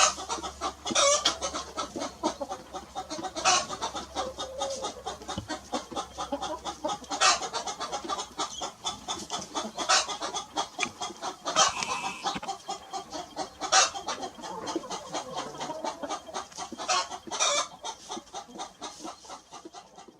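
A rooster and hen clucking in a near-continuous run of short clucks, with a louder, sharper cluck every few seconds.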